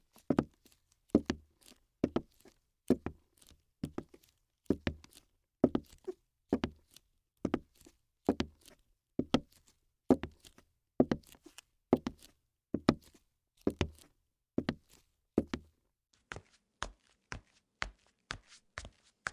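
Evenly paced footsteps, each a heavy double thud about once a second. About 16 seconds in they change to lighter, sharper taps about twice a second.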